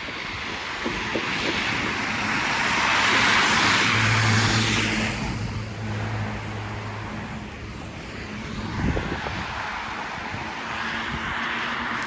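A large truck passing close by, its low engine drone and rushing road noise swelling to a peak and fading, followed by more passing traffic near the end.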